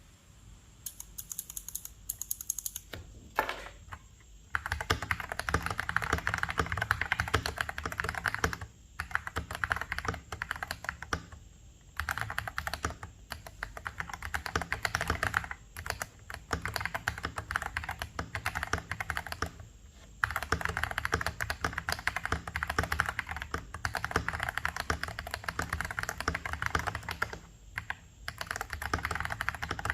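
Typing on a KBD67 Lite R2 mechanical keyboard fitted with stock Feker Panda tactile switches (a Holy Panda clone) and cherry-profile keycaps. A few scattered keystrokes at first, then a dense run of key clacks broken by short pauses every few seconds.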